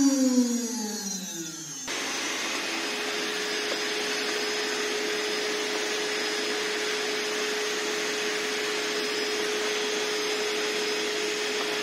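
A 5.5 kW CNC router spindle winds down, its whine falling in pitch over the first two seconds. A vacuum cleaner then switches on abruptly and runs steadily, with a constant hum in its noise, as its hose sucks up milling chips from the engraved plate.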